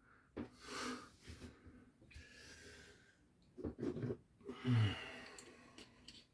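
A man breathing and exhaling audibly in several separate breaths, with a short low voiced sound just before five seconds in and a few faint clicks near the end.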